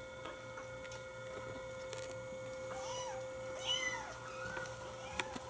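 Kittens mewing: about four short, high, rising-then-falling mews in the second half, over a faint steady hum.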